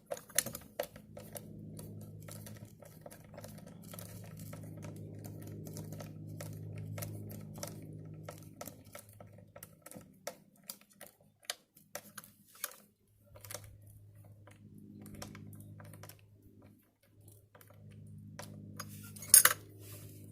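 Scattered clicks and taps of small hard parts being handled while fire alarm devices are set up, with one sharp, much louder click near the end. A low hum comes and goes underneath.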